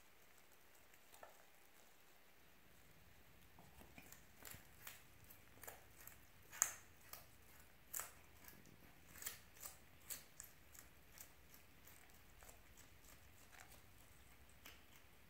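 Fennec fox chewing raw carrot pieces: a run of irregular, sharp, crisp crunches for several seconds near the middle, fading out toward the end.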